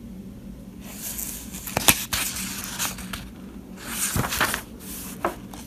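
Paper pages of a service manual being turned, rustling in two bouts with a few sharp snaps of paper.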